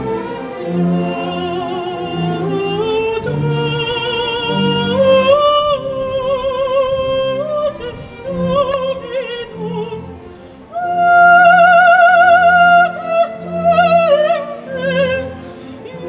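Classical music: a high operatic voice sings slow phrases with wide vibrato over sustained orchestral strings. About two-thirds of the way through it swells to a long held high note.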